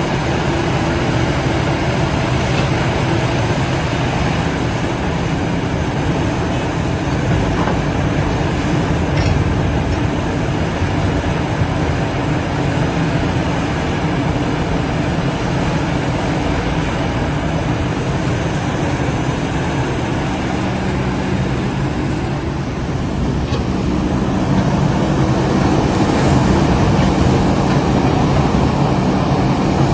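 Heavy diesel machinery, an excavator and a mining dump truck, running steadily with a deep engine drone; the engine note rises and gets louder about two-thirds of the way through, as under load.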